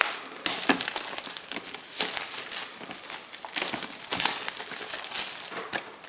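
Plastic shrink-wrap on a cardboard product box crinkling and crackling in irregular bursts as fingers pick at it and pull it off.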